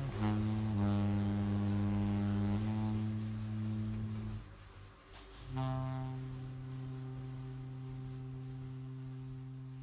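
Saxophone, guitar, double bass and drums quartet playing slow, low held notes: one long sustained sound for about four seconds, a short dip, then a final long note that slowly fades away as the piece ends.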